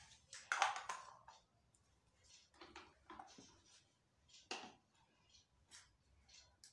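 Light, scattered clicks and knocks of plastic toy kitchen pieces being handled and set down on a toy stove, with the loudest clatter about a second in and another near the middle.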